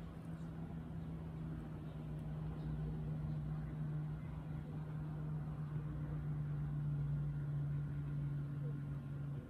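Steady low mechanical hum from a running motor or engine, holding one pitch and growing slightly louder partway through.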